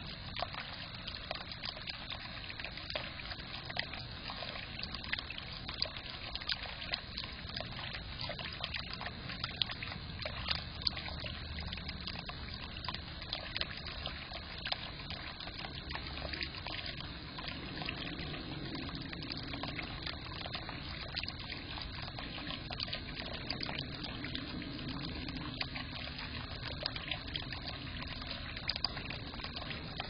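Bird-bath fountain spout pouring a thin stream of water into its basin: a steady trickle with constant small splashes.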